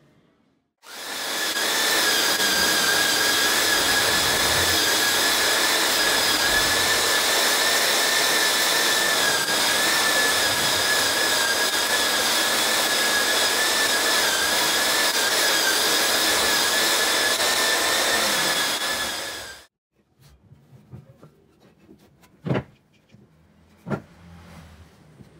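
Handheld belt sander running steadily on a reclaimed wood plank, a loud even rush with a high whine, starting about a second in and cutting off suddenly near the end. After it come two sharp knocks of wooden blocks on a workbench.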